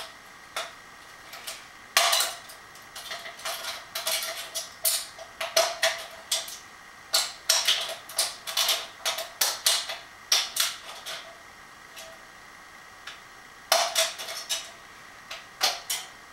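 Thin aluminium drink can being cut by hand along a marked line: irregular crackling clicks and scrapes of the thin metal, coming in short clusters with brief pauses.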